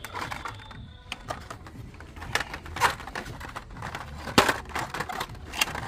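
Plastic blister-packed die-cast toy cars on their cardboard cards clicking and rattling as they are handled and pushed along metal peg hooks, with a sharper knock about four and a half seconds in.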